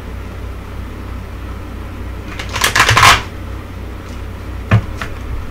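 Tarot cards being shuffled by hand: a quick, dense flurry of card flicks lasting under a second, about two and a half seconds in, then two sharp taps near the end.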